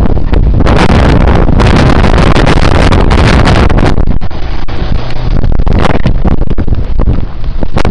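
Loud wind buffeting on the camera's microphone, overloading it, as the camera moves quickly through blowing snow. It eases and flutters from about four seconds in, then comes back near the end.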